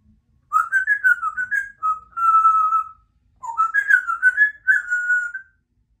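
African grey parrot whistling two short phrases, each a run of notes stepping up and down that ends on a longer held note.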